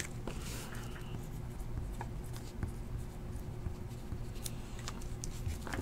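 A marker writing: quiet scratching with scattered faint ticks, and a sharp click right at the start.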